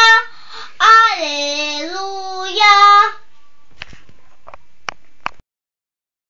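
A young girl singing alone without accompaniment in Mallorcan Catalan, ending one note and then holding a drawn-out final 'alleluia' whose pitch dips and rises again. A few clicks follow, then the sound cuts off.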